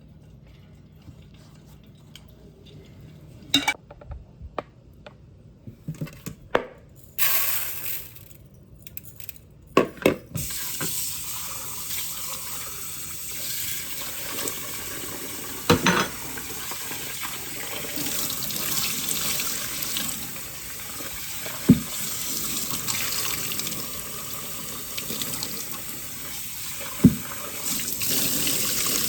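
Kitchen tap water running into a sink, starting about a third of the way in and continuing steadily, with a few single knocks of things being handled. Before the tap opens there are scattered clicks and taps.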